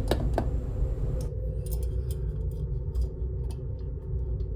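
Light metallic clicks and ticks from a Boeing 747 high-pressure shutoff valve's butterfly disc being rocked by hand, knocking in the play on its worn axle, over a steady low hum. That axle play is what probably kept the valve from closing fully.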